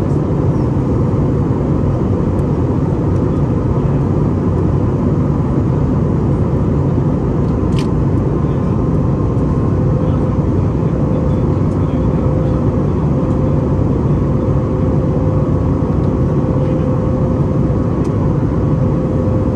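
Steady engine and airflow noise inside the cabin of a Boeing 737 MAX 9 with CFM LEAP-1B engines, heard from a window seat beside the wing. A faint steady hum joins it about halfway through.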